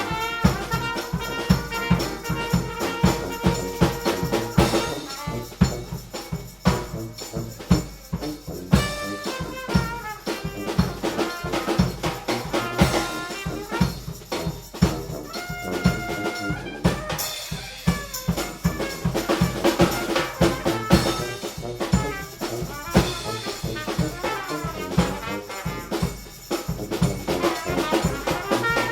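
Brass band playing a lively jazz tune: trumpets and other horns over a steady drum beat.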